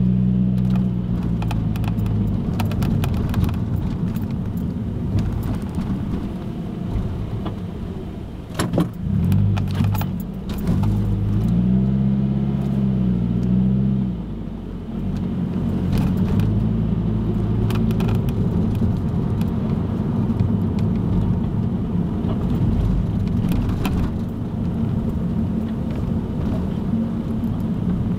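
Car engine and tyre noise heard from inside the cabin while driving slowly. The engine note rises and falls as the car speeds up and slows, with occasional light clicks and rattles.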